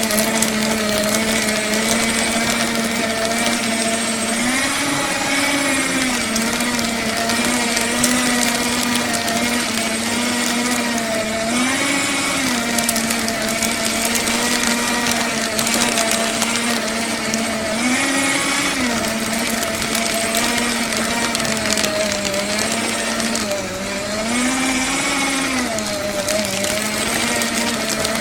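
Electric paper shredder running steadily with a motor hum while shredding paper. About every six to seven seconds its pitch briefly rises, with a burst of extra cutting noise.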